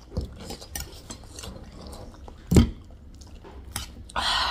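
Close-miked eating sounds: metal spoons clicking and scraping on plates of gilo chatpate, with chewing. One loud dull thump about two and a half seconds in, and a longer scrape near the end.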